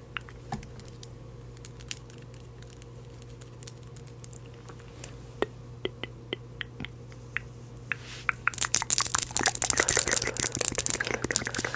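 Scattered light clicks, then from about eight and a half seconds in a dense, loud crackling close to the microphone, over a steady low hum.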